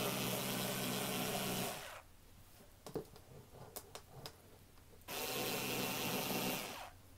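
Bosch IXO cordless screwdriver with its rotary cutter attachment running steadily as it cuts through heavy upholstery fabric. It stops about two seconds in, leaving a few small clicks, then runs again for about a second and a half near the end.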